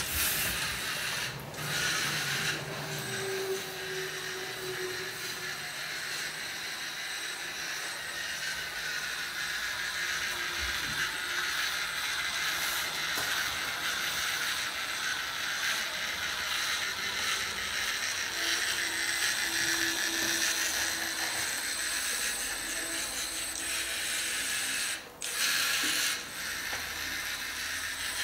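LEGO Mindstorms NXT servo motors and their plastic gear trains whirring as the robot drives. The sound runs on steadily and breaks off briefly about a second in and again near the end, where the motors stop for a moment.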